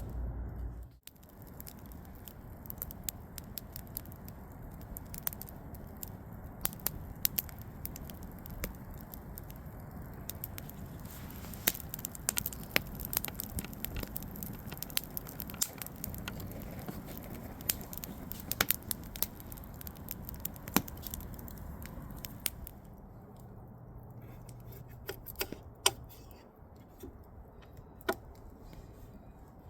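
Wood campfire crackling, with frequent sharp pops and snaps over a steady low hiss; the pops thin out and the fire gets quieter near the end.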